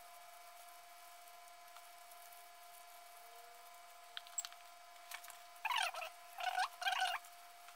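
Plastic-gloved hands squeak and squelch as they work chili paste into wet napa cabbage in a plastic basin. Three short squeaky bursts come close together about six to seven seconds in, over a steady faint hum.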